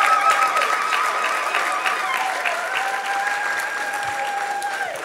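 Audience applauding, with a high, wavering held tone sounding over the clapping. The tone shifts pitch about halfway through and breaks off near the end.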